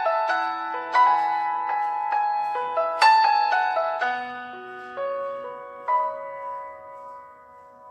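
Background music: slow piano notes and chords struck and left to ring out, the loudest strikes near the start and about three seconds in, growing softer toward the end.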